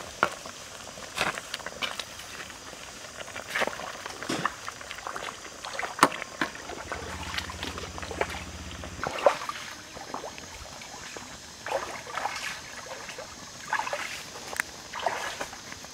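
A metal ladle stirring curry in a wok, the liquid sloshing, with scattered sharp clicks and knocks of the ladle against the pan.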